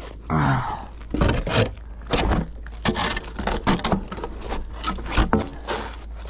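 Thin, rusted sheet-metal panel held by a magnet-fishing magnet, scraping and knocking against a concrete bridge parapet as it is hauled up out of the water: a string of scrapes and sharp clanks.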